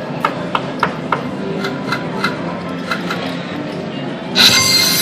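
WMS Fallen Angels video slot machine on its last free spin: a run of sharp clicking ticks, about three a second, while the reels spin. About four seconds in, the machine's music starts loud and sudden as the free-spin bonus ends.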